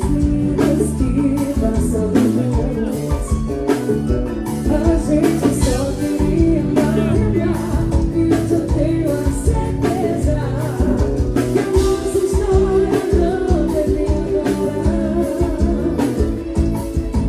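Song with a woman singing over a band with a steady drum beat.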